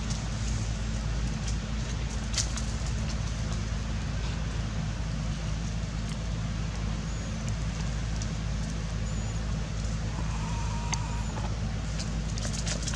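A steady low motor-like hum with a few faint clicks and a brief higher-pitched squeak about ten seconds in.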